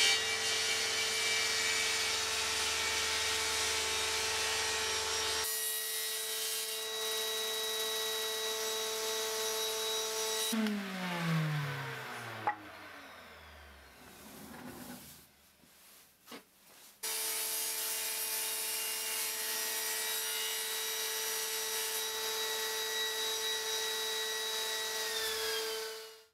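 Table saw running with a steady motor whine while sawing a solid beech block. About ten seconds in it is switched off and the whine falls in pitch as the blade spins down, followed by a few knocks. It runs steadily again from about seventeen seconds until it stops near the end.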